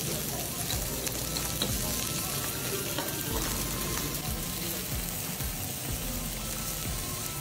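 Steak and bell pepper strips sizzling steadily on a hot flat-top steel griddle, with a few light clicks of a knife on the steel plate.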